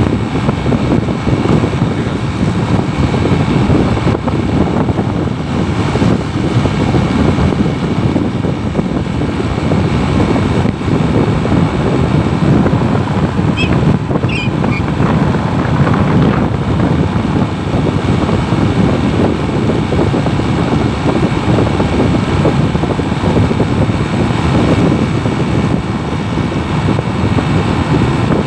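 Steady rumble of a vehicle driving along a road at an even speed, with wind rushing over the microphone. A few faint high chirps come about halfway through.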